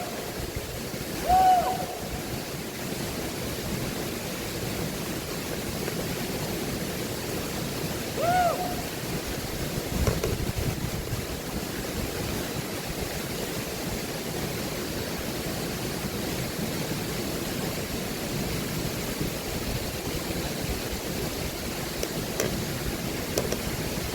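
Steady rush of a waterfall's falling water. Two short calls, each rising then falling in pitch, come through about a second and a half and about eight seconds in.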